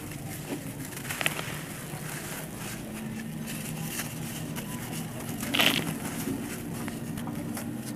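Dry red dirt crumbling in the hands and pouring back down: gritty crunching and a soft patter of falling grains, with a louder crunch about five and a half seconds in.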